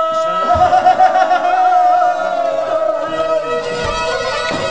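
Black Sea kemençe, the small three-stringed bowed fiddle, playing an ornamented folk melody over a steady drone.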